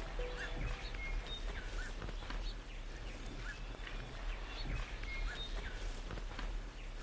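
Small birds chirping and calling, many short chirps, about two a second, over a steady background hiss.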